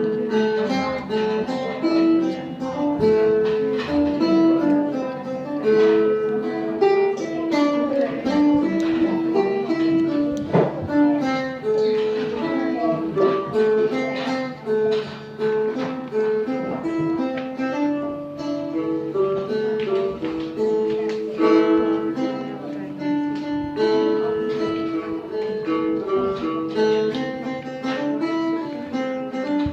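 Phin, the Isan plucked lute, playing a quick melody of plucked notes over a steady drone.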